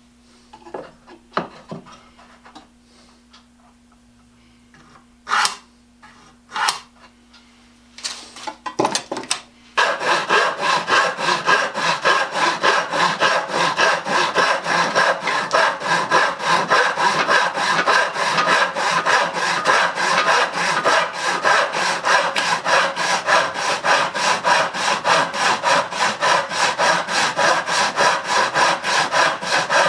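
A few scattered knocks and clicks, then from about ten seconds in a hand saw with 10 teeth per inch cuts poplar in quick, steady, even back-and-forth strokes.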